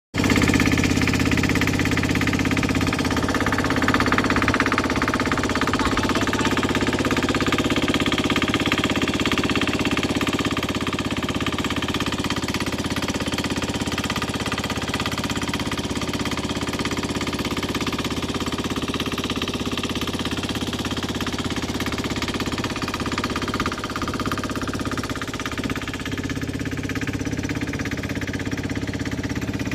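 A boat's engine running steadily, with a rapid even beat.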